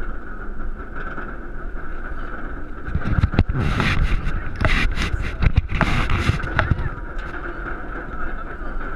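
Goliath roller coaster train being hauled up the chain lift hill, the lift running with a steady hum and rumble. From about three to seven seconds in, a louder stretch of rustling and irregular knocks lies over it.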